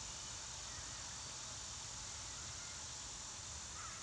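Steady, high-pitched chorus of crickets or similar insects, unchanging throughout.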